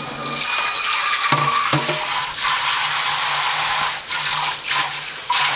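Kitchen faucet on spray setting running into a stainless-steel double sink, splashing over hands and a nonstick frying pan being rinsed. The stream's sound shifts as the hands and pan move under it, with a few light knocks.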